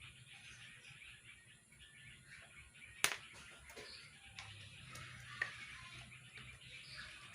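Faint background music over a low hum, broken by a sharp click about three seconds in and a lighter click a couple of seconds later.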